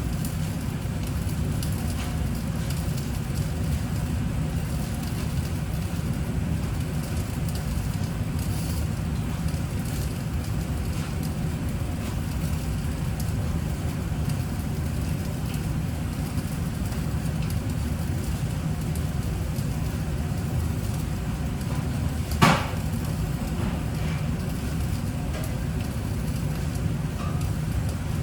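Steady low rumbling noise, with a single sharp knock about 22 seconds in.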